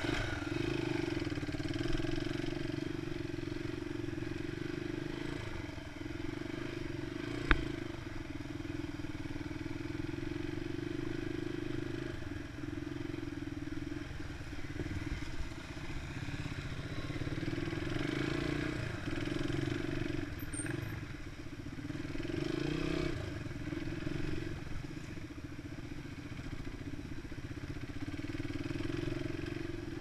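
Enduro motorcycle engine running while riding, its note swelling and easing off with the throttle every few seconds. One sharp knock about seven and a half seconds in.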